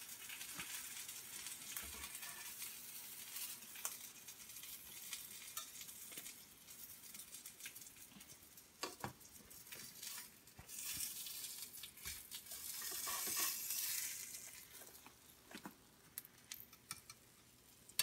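Oil sizzling in a frying pan of pink salmon fillets, with scattered scrapes and taps of a spatula as the fillets are lifted out. The sizzling swells louder for a few seconds about eleven seconds in.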